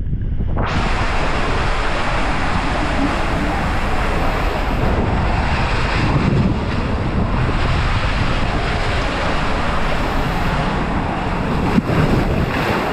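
Loud steady rushing noise with wind buffeting the microphone, starting abruptly about a second in.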